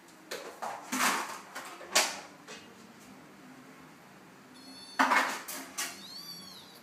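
A kitten and an adult cat play-fighting: several short, sudden scuffling noises in the first two seconds and again about five seconds in, with a brief high squeak near the end.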